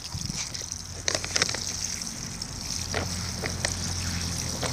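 Water sprinkling from a plastic watering can's rose onto loose soil and compost in a grow bag: a steady patter of spray, with a few light clicks along the way.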